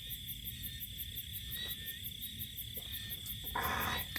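Insects calling: crickets chirping in an even pulse of about five a second over a steady high insect drone. A short noisy rustle comes near the end.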